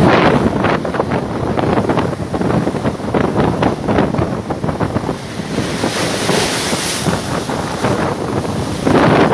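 Big waves crashing against a ship at sea, with water splashing and wind buffeting the microphone. The sea surges loudest at the start and again about 9 seconds in, with a hiss of spray a little before that.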